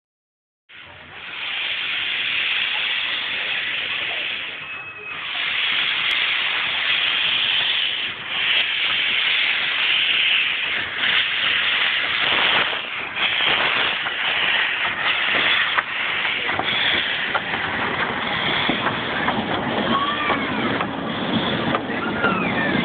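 Steam hissing loudly from a Fowler steam locomotive, an ex-Queensland cane-railway loco. The hiss is broken by short dips and grows rougher and more uneven in the second half.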